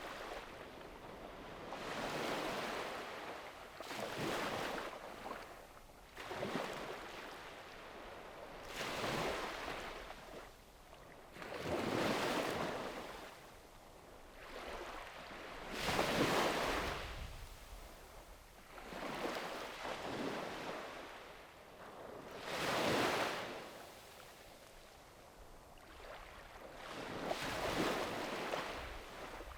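Small sea waves breaking and washing up a sandy beach, a hiss that swells and fades every few seconds, about ten times.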